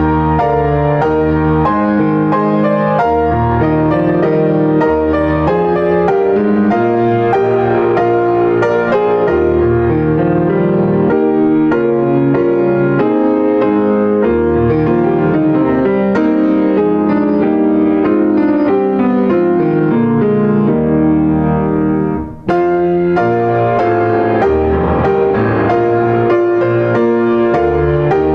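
Piano music playing full chords over a moving bass line, with a brief break about three-quarters of the way through before it carries on.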